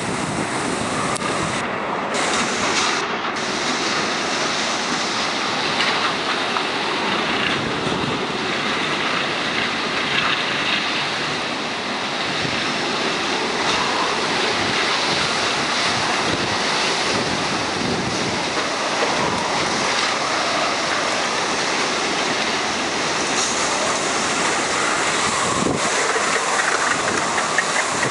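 Strong typhoon wind blowing in gusts, a dense, steady rush. This is the back-side wind that follows once the typhoon's centre has passed.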